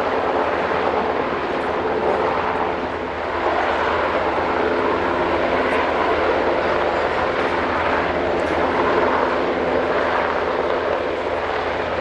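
US Coast Guard MH-60T Jayhawk helicopter hovering low over the water: a steady, loud rotor and turbine drone that holds level, with only a brief dip about three seconds in.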